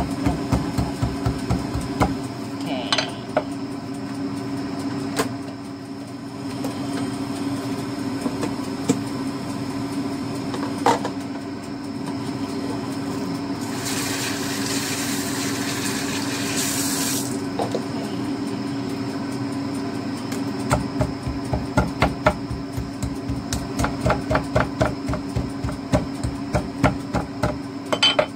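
A steel cleaver strikes rapidly and repeatedly on a slab of pork neck on a wooden chopping board, several blows a second, scoring and tenderizing the meat. The strikes come in two runs, with scattered single knocks between them. About halfway through, water from a kitchen tap runs for a few seconds, and a steady low hum lies under everything.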